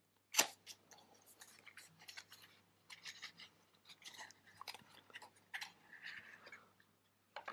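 Small cardboard box being opened by hand: a sharper snap about half a second in, then a run of faint rustles, clicks and scrapes as the end flap is worked open and a plastic storage case is slid out, with a longer scrape near the end.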